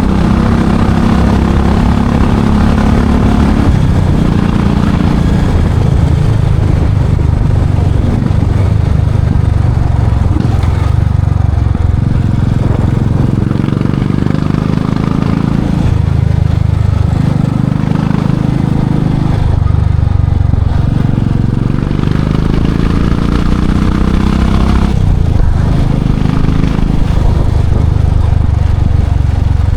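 Royal Enfield Classic 500's single-cylinder four-stroke engine running loud through its exhaust under way, its note rising and dropping several times as the throttle and engine speed change.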